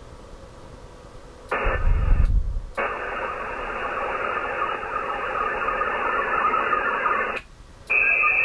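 Digital modem data bursts from a Winlink HF radio link, screeching and hissing in blocks that start and stop abruptly. The first begins about a second and a half in with a low rumble under it. A long one follows, and a last one near the end carries a steady high whistle. These bursts are the end of a message transfer over the air.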